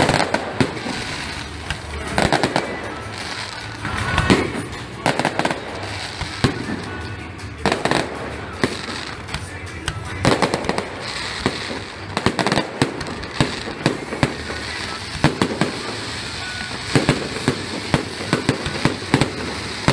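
Fireworks display: a continuous run of sharp bangs and crackles from bursting shells, thickening into dense clusters of reports several times, around two, four, eight and ten seconds in.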